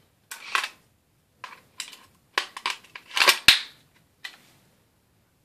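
Sharp mechanical clicks and clacks from a CO2 blowback airsoft pistol being handled, its slide and stick magazine being worked. It is an irregular run of a dozen or so snaps, with the loudest pair about three and a half seconds in.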